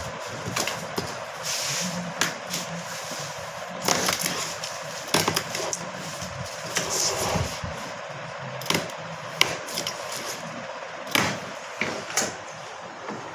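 Workshop noise during roller blind making: irregular clicks and knocks, as from parts being handled and cut, over a steady machine hum.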